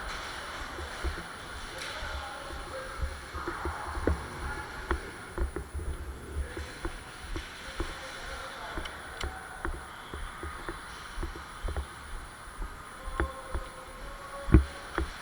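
Scattered clicks, knocks and low thumps from movement and handling during an airsoft game, with faint distant voices, and one sharp crack near the end.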